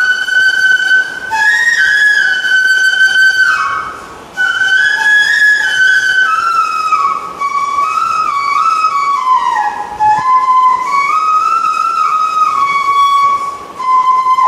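Solo bamboo flute (bansuri) playing a slow, gliding melody. The phrases are separated by short breaths about four seconds in and again near the end.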